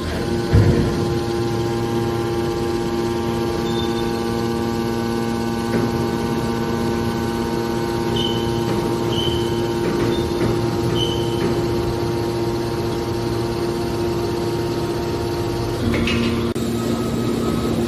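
Hydraulic scrap metal baler running, its electric motor and pump giving a steady hum. A knock comes about half a second in, a few short high squeaks come around the middle, and the hum changes pitch near the end.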